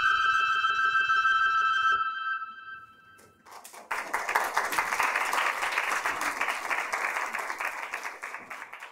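A held synthesizer chord with a slightly wavering pitch fades out about two to three seconds in. About a second later, audience applause starts and slowly dies down.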